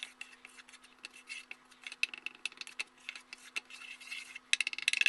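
Wooden spatula stirring and scraping dry flour in a pan as it is toasted over low heat: a run of soft scratches and rubs, thickest near the end, over a faint steady hum.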